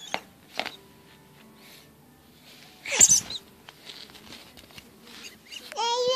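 A baby's voice: a short, wavering, high-pitched squeal near the end. Two soft knocks at the start and one loud thump about three seconds in, as the inflatable toy hammer is swung about.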